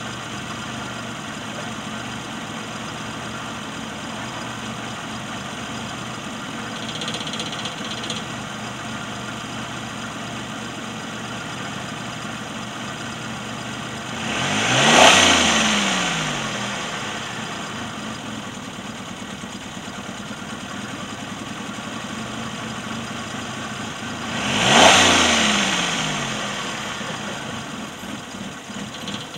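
Bored-and-stroked Suzuki G10 one-litre three-cylinder with a high-lift cam, warmed up and idling, revved twice, about halfway through and again near the end. Each rev climbs quickly and then falls back slowly to idle.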